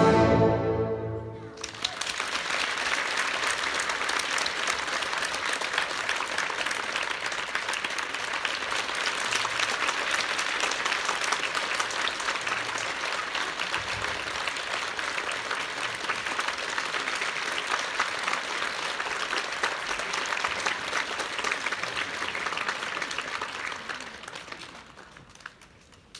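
An orchestra's closing chord rings out and stops, then an audience applauds steadily for about twenty seconds, the clapping fading away near the end.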